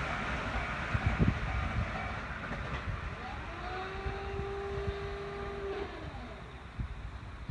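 205-series electric train running past the level crossing, its rumble fading as it moves away. A steady whining tone comes in about three seconds in and drops away near six seconds.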